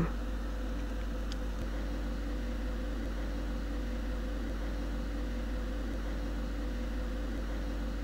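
Steady electrical hum with a faint hiss, the even background noise of the recording; no other sound stands out.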